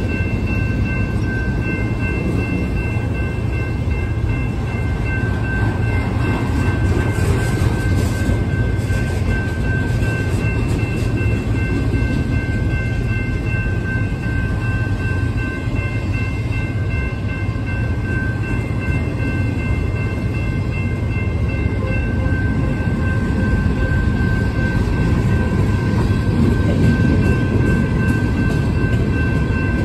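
Freight cars rolling past at a grade crossing: a steady, continuous rumble of rail cars on the track. A crossing bell rings steadily over it.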